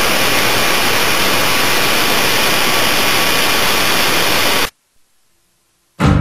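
Loud, steady hiss of white-noise static that cuts off suddenly about four and a half seconds in, followed by a second or so of silence; music starts right at the end.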